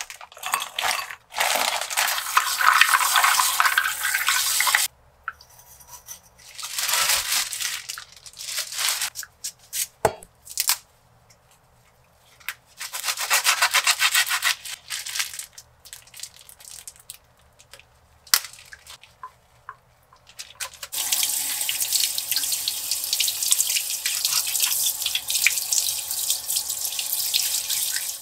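Kitchen tap running into a sink in four spells, splashing over food being rinsed, the last and longest lasting about seven seconds near the end. A few light knocks fall in the gaps.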